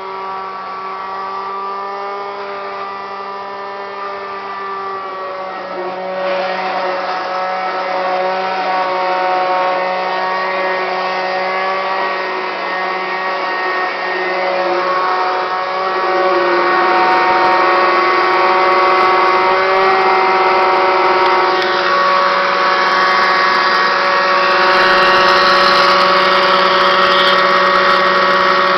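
Kirby Classic 1-CR upright vacuum cleaner running with bad motor bearings: a loud, steady whine with a rough, grinding noise under it. It grows louder in steps, about six seconds in and again about sixteen seconds in.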